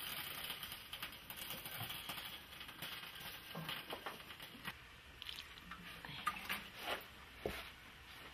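Faint rustling of a sack of raw wool being opened and handled. The hiss fades after the first few seconds and gives way to scattered soft clicks and taps, a few sharper ones near the end.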